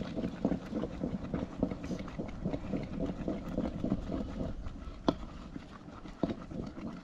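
Irregular run of soft knocks and taps over a low rumble, with a sharper click about five seconds in.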